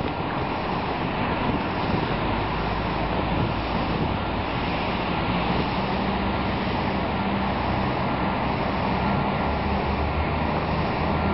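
Steady outdoor traffic noise with wind rushing on the microphone; a low engine hum comes in about five seconds in.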